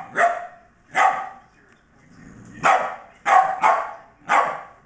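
Scottish Terrier barking: six sharp barks, two close together near the start, then a pause, then four more in quick succession.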